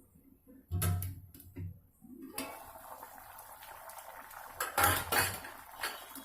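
Steel plate and pan clanking as the plate-lid is handled and set back on the cooking pan, with a steady hiss of the hot, steaming vegetables starting about two and a half seconds in and the loudest clanks near the end.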